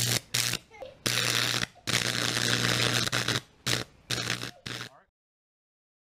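High-voltage arc from a microwave oven transformer, at about 2,000 volts, drawn off a potato: a loud electric buzz with a strong low mains hum and crackle, in about seven on-off bursts, the longest almost two seconds. The sound cuts off abruptly about five seconds in.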